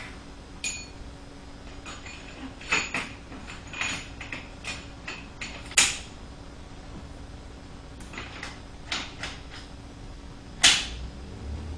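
Scattered short metal clicks and knocks from hands handling an Orbitalum RPG 45 tube squaring machine, over a faint steady hum. The sharpest clicks come about six seconds in and again near the end.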